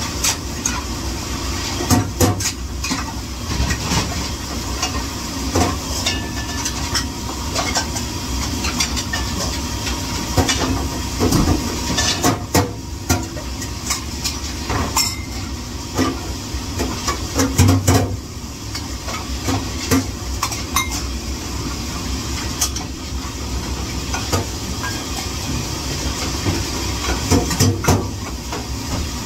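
Dishes and cutlery clattering and clinking at irregular moments over a steady background noise, as in dishwashing work.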